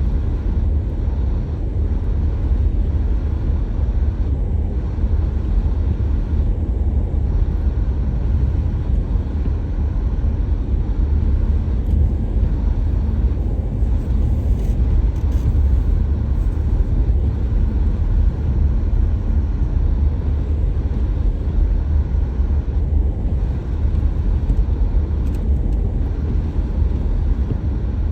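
Car driving steadily, a continuous low rumble of road and engine noise.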